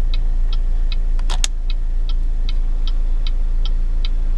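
Chevy HHR turn-signal flasher ticking at an even rate, about two and a half ticks a second, while a newly fitted turn-signal bulb is tested, over a steady low hum. A single sharp click comes about a second and a half in.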